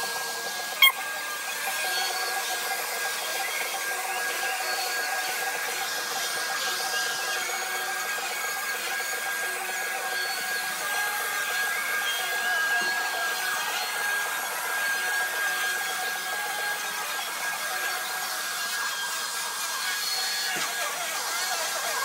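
Upright vacuum cleaner running steadily as it is pushed across carpet, its motor holding a constant high whine. A single sharp click about a second in.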